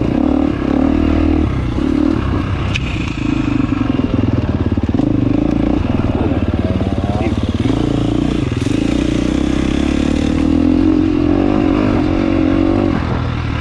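Dirt bike engine running while riding along a trail, its pitch rising and falling with throttle and gear changes.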